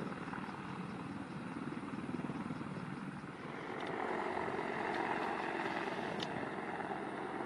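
Boeing AH-64 Apache attack helicopter flying low past, its rotor and twin turboshaft engines making a steady drone; about four seconds in it grows louder and brighter.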